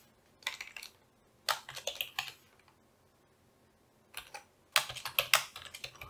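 Typing on a computer keyboard: short bursts of keystrokes with a pause of about two seconds midway.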